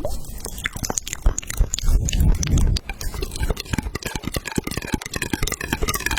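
Close-up crunchy chewing and biting: a rapid, irregular run of crisp crunches and clicks.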